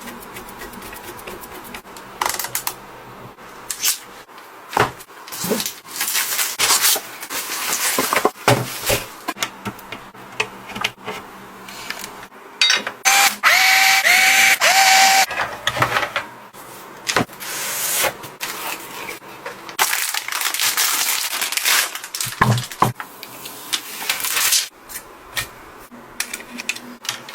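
Hands handling computer parts and their packaging: irregular plastic clicks, taps and rustles, with a brief run of squeaks about halfway through.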